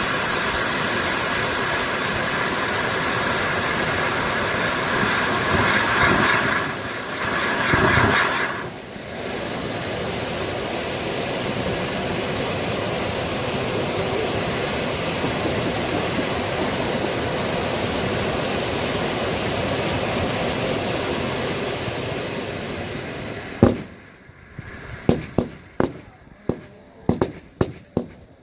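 Pyrotechnic waterfall (a curtain of cascade fountains) burning with a loud, steady hiss of sparks, swelling for a moment twice in the first third and cutting off suddenly near the end. It is followed by a quick run of sharp firework bangs and crackles.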